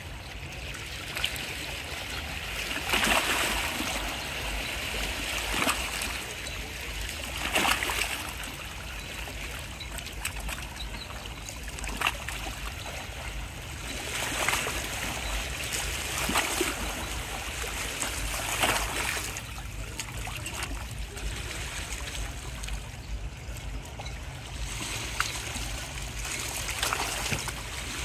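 Small waves lapping and splashing against shoreline rocks, swelling every few seconds over a steady low rumble.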